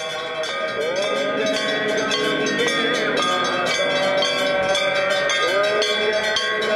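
Bells ringing fast and without pause during a Hindu aarti, with voices singing a chant over them. The sound grows louder over the first second.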